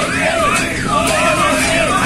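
A siren sweeping up and down about twice a second, over a crowd of football fans chanting and shouting from the windows of a passenger train as it rolls past.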